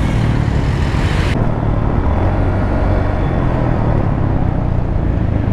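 Motorcycle engine running under heavy wind rush on a helmet-mounted microphone that has lost its foam windscreen. The high hiss of the wind drops away abruptly about a second and a half in, leaving the low rumble.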